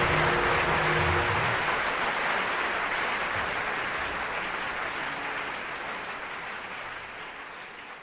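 Audience applauding, dying away steadily toward the end.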